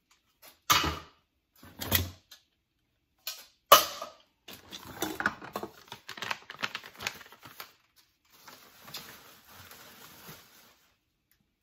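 Items being handled and set down in a cardboard box: three knocks, the loudest about four seconds in, then paper crinkling as a paper gift bag is lifted and handled, dying to softer rustling near the end.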